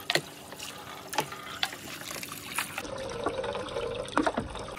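Water pouring from a clear plastic tube into a tub of water, with a steady trickle and frequent small splashes and drips. About three seconds in the sound changes to a closer, bubbling rush of water at the tube's outlet.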